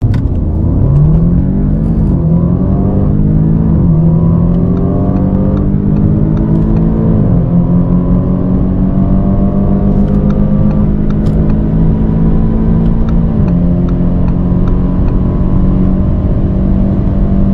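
Turbocharged 2.0-litre four-cylinder sports car accelerating flat out from a standstill. The engine note climbs through each gear and drops at quick upshifts about two, four, seven and thirteen seconds in.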